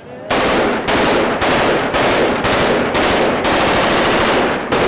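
Automatic rifle fired into the air in celebration, very loud and close: long bursts of automatic fire, one after another, with brief breaks about every half second.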